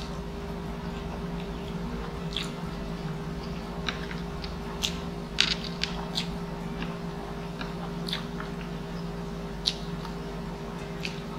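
Close-miked chewing of a mouthful of jajangmyeon (black bean noodles), with scattered wet mouth clicks and smacks over a steady low hum.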